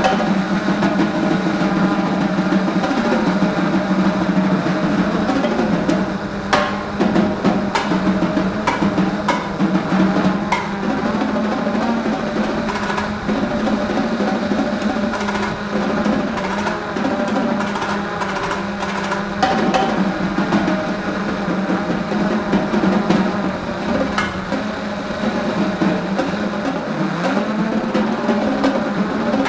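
Freex Skyview quadcopter's electric motors and propellers buzzing steadily in flight, picked up close by the onboard camera, the pitch wavering slightly as the motors adjust. A few short clicks come through between about six and eleven seconds in.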